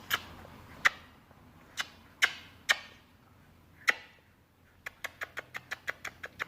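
Sharp clicks from a Shiba Inu puppy: a few scattered ones, then a quick run of about six a second near the end.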